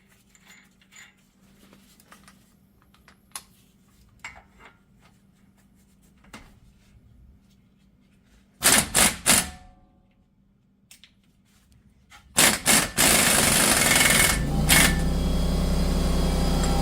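Faint clicks of parts being handled, then an impact wrench fires in three short bursts, runs the axle nut on, and fires again in short bursts. A few seconds before the end a loud steady machine drone sets in and keeps going.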